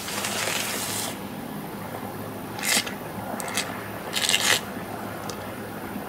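A hot casting flask plunged into a bucket of cool water: a burst of hissing and boiling for about a second. Then several splashes and sloshes follow, the loudest about four and a half seconds in, as the flask is swished in the water and the plaster investment breaks apart.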